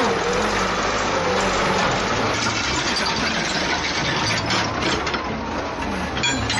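Heavy machine's engine running steadily, with a few sharp mechanical clanks about two-thirds of the way in and again near the end.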